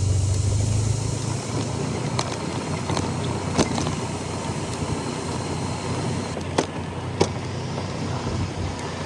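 Honda 125 cc scooter's single-cylinder engine running while riding, with wind rushing over the microphone. The engine's low hum drops away after about a second and a half, and a few sharp knocks come through.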